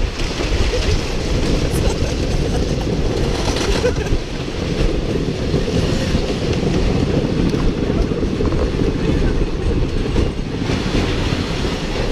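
Wooden roller coaster train running along its track, heard from a rider's seat: a loud, steady rumble and clatter.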